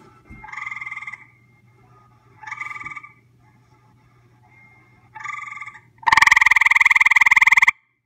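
Gray treefrog calling at close range: three short trills, then a much louder trill lasting about a second and a half near the end.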